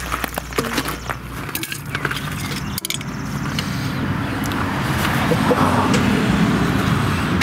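Metal clinks and knocks of a pry tool working at the hub's centre cap on a Ford Focus rear brake drum. From about three seconds in, a rumbling, grainy noise swells and then cuts off suddenly at the end.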